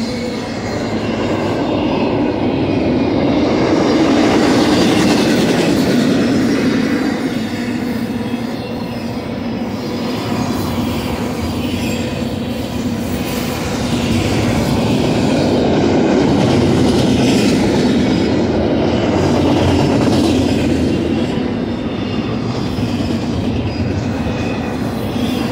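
Double-stack intermodal well cars rolling past on the mainline: a steady rumble of steel wheels on rail. It swells and eases twice as the cars go by.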